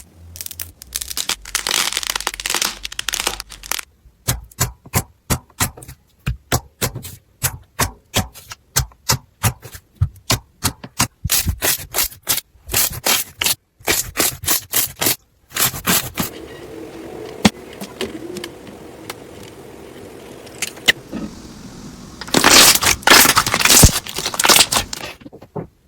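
Slime being pressed and squished by hand: a long run of sharp clicks and pops, then softer hissing and rustling, then a loud burst of dense crackling near the end.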